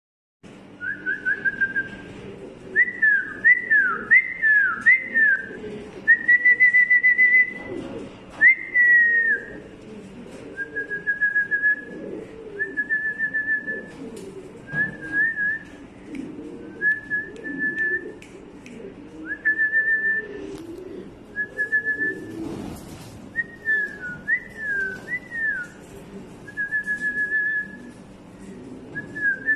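High whistled notes and short trills, repeated every second or two, some gliding down in pitch, over a low wavering murmur.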